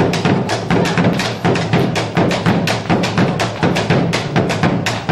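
Argentine folk music with a fast, steady percussive beat: several sharp strikes a second over a full, steady low accompaniment.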